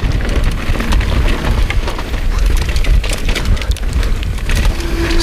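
Mountain bike descending fast over a dirt and rock trail: wind buffets the chest-mounted action camera's microphone in a heavy low rumble, while the tyres crunch over loose ground and the bike rattles with many quick clicks and knocks.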